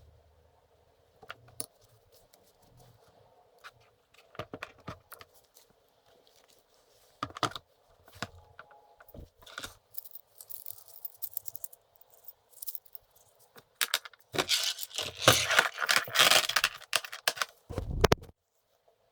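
Hand work on a workbench: scattered light clicks and knocks of parts being handled. Then a few seconds of dense scraping or crinkling, ending in a dull thump.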